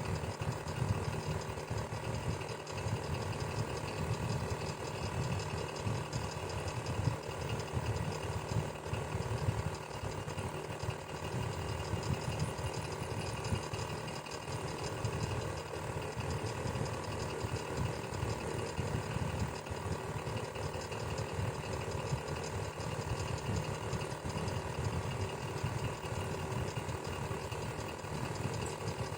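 Electric fan running steadily: a low motor hum with a fast, even flutter.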